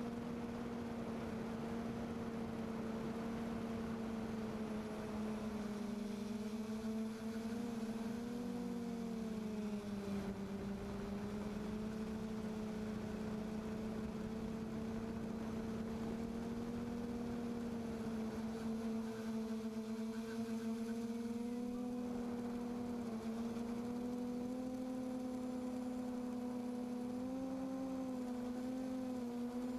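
QAV540G multirotor's electric motors and propellers humming in flight, heard from the onboard camera: a steady hum of a few pitched tones over a hiss, its pitch drifting slowly up and down with the throttle and rising a little near the end.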